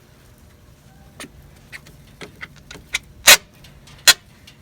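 Parts of a Racor fuel filter being handled and fitted: faint small clicks, then two loud, short scraping knocks about a second apart near the end.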